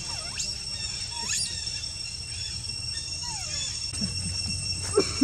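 Monkey squeals: two high calls sweeping steeply up in pitch in the first second and a half, then one call falling in pitch about three seconds in, over a steady high insect drone. There are a couple of short knocks near the end.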